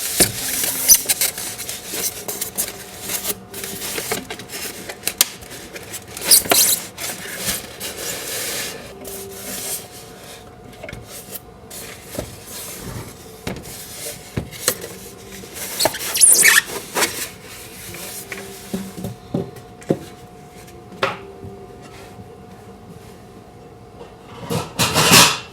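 Cardboard and plastic packaging and parts being handled during unboxing: irregular rubbing and rustling with scattered knocks and clicks, quieter in the second half.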